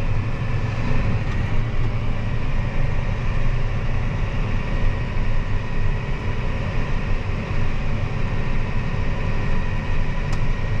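Engine of a grain-hauling farm vehicle running steadily under way, a low rumble with a faint steady whine over it.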